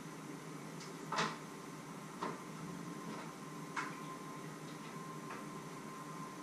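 Four light clicks and knocks at uneven intervals as kitchen things are handled, the first about a second in being the loudest.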